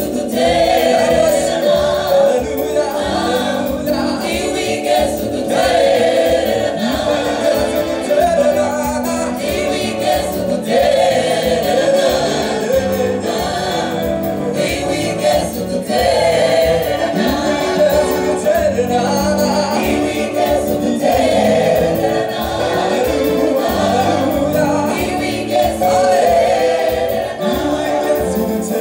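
A choir singing a gospel song, backed by a live band with a steady drum beat.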